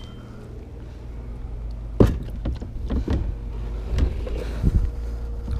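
A sharp knock about two seconds in, then several lighter knocks and bumps, as a freshly caught bass and gear are handled in a fishing boat, over steady wind rumble on the microphone.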